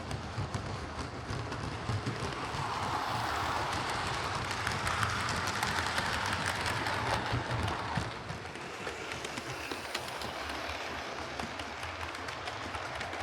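Hornby OO gauge Class 4P model steam locomotive running along the track: the whirr of its motor and gears with the click of the wheels, growing louder for a few seconds and then easing off as it passes. The split drive gear has been replaced and the intermediate gear cleaned, so it runs without the kick or lurch it had before.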